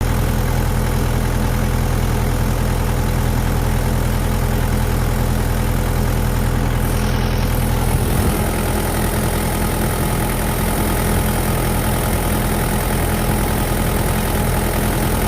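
Kubota tractor's diesel engine running steadily, its note changing about eight seconds in.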